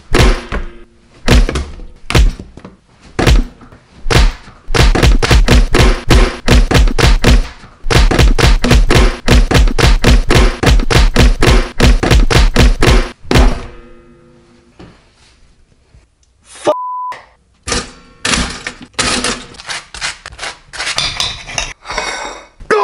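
Rapid runs of heavy thuds at a fast, even pace, broken by short gaps, then a single short beep about two-thirds in, followed by a further run of sharper clicks and knocks.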